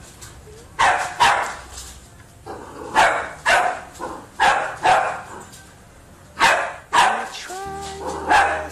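A young Cavalier King Charles spaniel barking repeatedly: about ten sharp barks, mostly in pairs, with short gaps between pairs. Background music comes in near the end.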